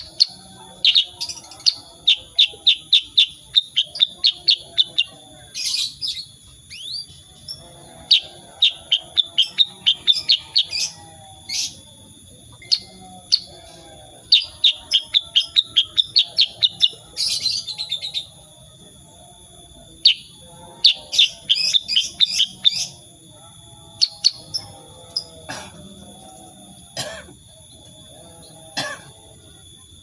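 Black-headed bulbul (kutilang sutra) singing: rapid runs of sharp, clipped high notes in bursts of two to four seconds, with short pauses between them and a few single sharp notes near the end.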